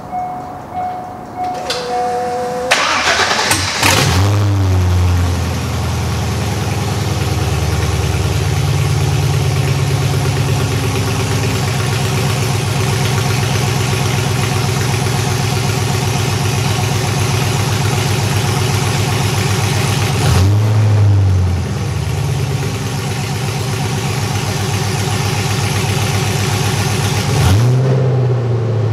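2001 C5 Corvette's 5.7-litre LS1 V8, running through open long-tube headers with no exhaust fitted, cranks and fires about three seconds in, after two short electronic tones. It settles into a loud, lumpy high idle and is blipped twice near the end, the pitch rising and falling each time.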